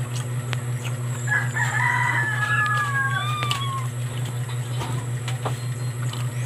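A rooster crowing once, a call of about two and a half seconds that holds a note and then falls away at the end, over a steady low hum.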